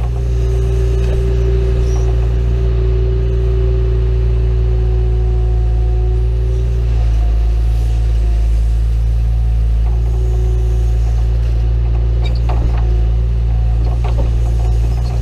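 John Deere 310E backhoe's diesel engine running steadily while digging, with a whining tone that comes and goes over the drone and a few short clanks near the end.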